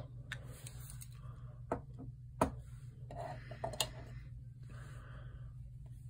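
Stainless Leatherman multitools being handled: a few sharp metal clicks, spread out, as slip-joint screwdriver blades snap shut and are opened, with soft rustling of hands between them.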